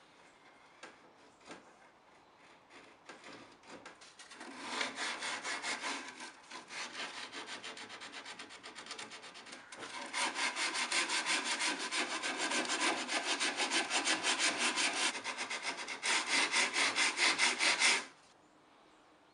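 Plywood being hand-sanded with a sheet of sandpaper: quick back-and-forth scraping strokes, about four a second. The strokes start a few seconds in, get louder partway through, and stop abruptly near the end.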